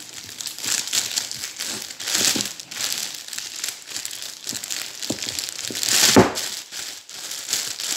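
Thin plastic sheet crinkling and crackling as hands press it down into a glass jar, packing down the fermenting rice and fish. The loudest crackle comes about six seconds in.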